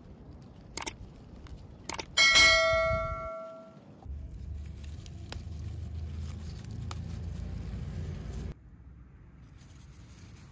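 Subscribe-button animation sound effect: two mouse clicks, then a bell ding that rings out and fades over about a second. After it, a steady low rumble runs for a few seconds and then drops away.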